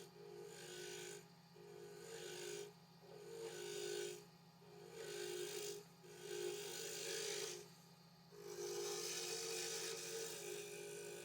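A willow pen blank on a running wood lathe is being worked with an abrasive or tool in repeated rubbing passes, each lasting a second or two with short pauses between. A steady motor hum runs underneath.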